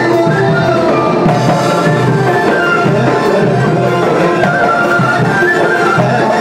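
Live traditional Middle Eastern band music: goblet drums and a drum kit keep a steady beat under a wavering melody line, with a singer on the microphone.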